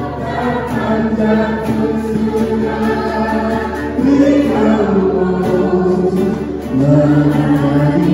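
A group of people singing a song together in chorus, with long held notes that step from one pitch to the next.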